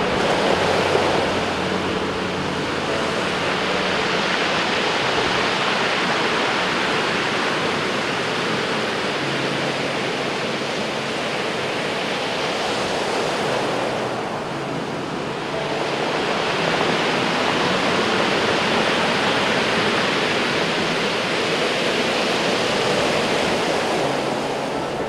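Heavy hurricane-driven surf breaking and washing over a pebble beach: a continuous rushing roar that eases briefly about halfway through, then builds again.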